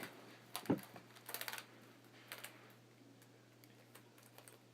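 Small plastic clicks and clatters of Rubik's cube pieces being handled and switched around. They come in a few quick clusters, fading to faint ticks near the end.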